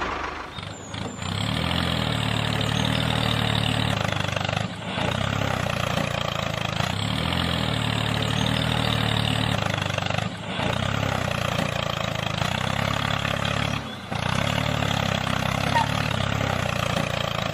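Tractor-like engine running steadily at a low, even pitch, briefly dropping away a few times.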